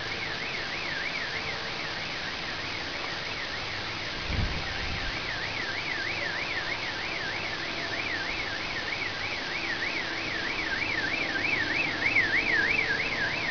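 Car alarm siren warbling up and down several times a second, quickening towards the end, over a steady rushing background noise. A dull thump comes about four seconds in.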